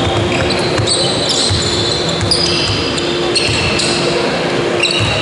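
Basketball shoes squeaking repeatedly on a sports-hall court floor in short, high-pitched squeals, with a few thuds of the ball bouncing.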